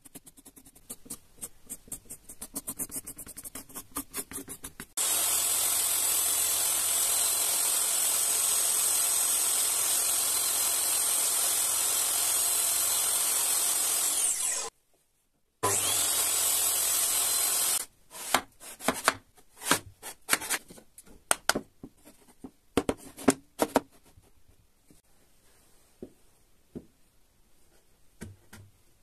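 Quick pencil strokes scratching on wood, then a table saw running steadily for about ten seconds, cut off abruptly and briefly heard again. After it, sharp knocks and taps of wooden blocks being handled and fitted together into a corner joint.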